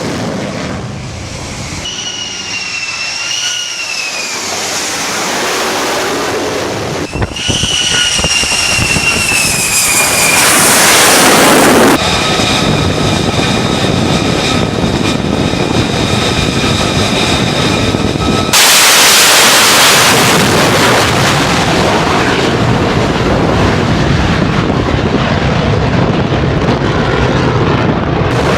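The F-35A's single Pratt & Whitney F135 jet engine passing in flight: a loud, rushing roar with a high turbine whine that twice slides down in pitch. After that come steady high tones, with abrupt shifts in the sound about twelve seconds in and again about six seconds later.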